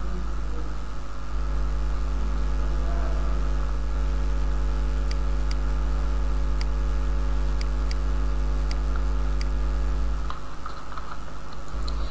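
Steady electrical mains hum and buzz, picked up by the recording microphone, with about seven faint clicks between roughly five and nine and a half seconds in.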